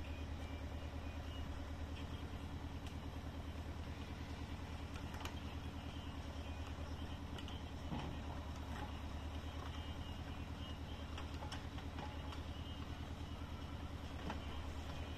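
A steady low engine hum with a fine even pulse, heard from inside a car. A few faint knocks come through it at intervals: logs being set down by a forestry crane onto a log trailer.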